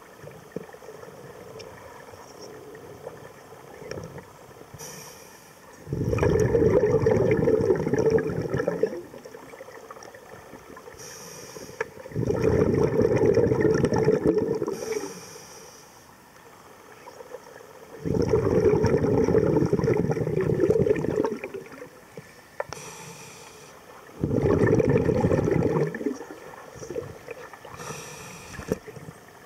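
Scuba regulator breathing heard underwater: four loud bursts of exhaled bubbles, each two to three seconds long and about six seconds apart. A short high hiss of inhalation comes between them.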